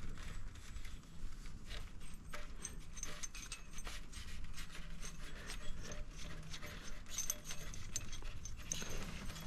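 Light metallic clicks and clinks of washers, a bolt and an idler pulley being handled and fitted together, irregular throughout, over a low steady hum.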